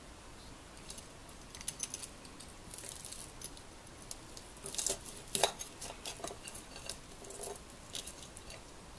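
Metal serving spoons clinking and scraping against a ceramic plate as a piece of fried chicken is pried up and lifted: a run of small irregular clicks and scrapes, loudest about halfway through.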